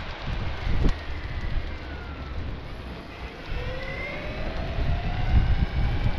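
Wind buffeting the microphone over the low rumble of a moving electric skateboard. About halfway through, a faint whine rises in pitch, fitting the board's motor as it speeds up.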